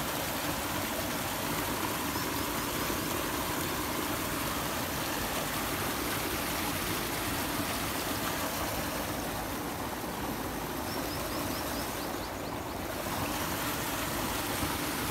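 Muddy irrigation water rushing fast down a narrow concrete-lined field watercourse: a steady gushing flow.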